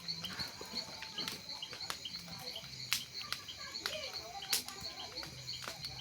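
Night insect chorus of crickets chirping in a steady high pulsing trill. About three and four and a half seconds in come sharp pops, with faint voices in the background.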